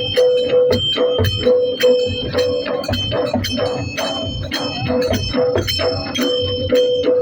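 Adivasi dhol music: fast, driving drum strokes about four or five a second, with metallic jingling and a short repeating tone over the beat.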